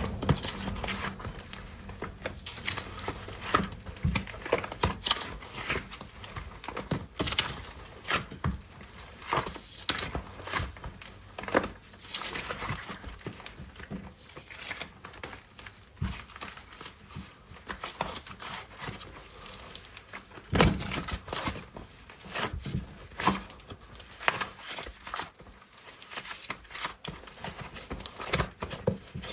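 Air-dry clay and its packaging handled by hand: irregular crinkling and crackling with scattered sharp clicks.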